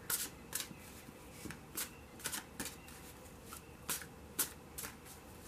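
Tarot cards being shuffled by hand: a string of crisp card snaps and slaps at uneven intervals.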